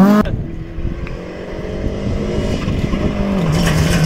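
A loud rally car engine cuts off suddenly just after the start. Then another rally car's engine is heard approaching, faint at first and growing steadily louder.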